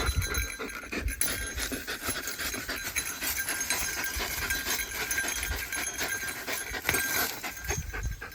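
A bell on a German shepherd jingling continuously as she moves about, a dense run of small jingles and clicks, with the dog panting.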